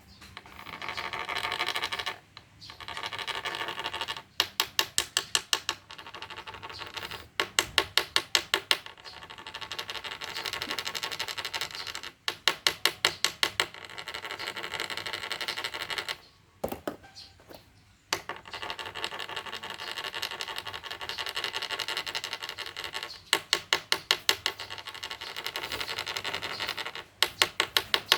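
Rasping buzz from a spinning stick worked against the log to goad fighting rhinoceros beetles. Long steady buzzing stretches alternate with runs of rapid clicking, about ten clicks a second, with a few short pauses.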